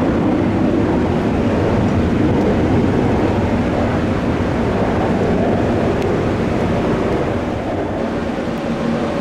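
Jet airliner engines giving a loud, steady rumble that eases a little near the end, with a faint engine whine coming through.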